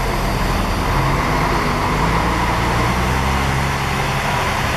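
Diesel intercity coach's engine running as the bus drives off, a steady low drone whose tones shift slightly in pitch partway through.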